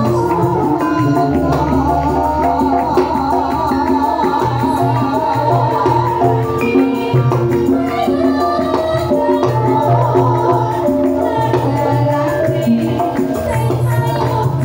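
Live Javanese ensemble music with percussion and singing, playing continuously with a steady, repeating bass line.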